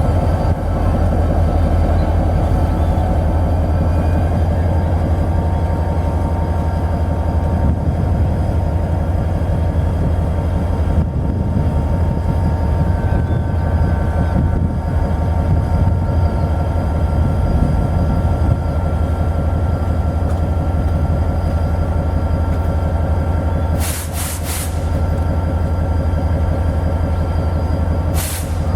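Diesel freight locomotive running steadily with a deep engine drone and a steady whine, with short hisses of air about 24 seconds in and again near the end.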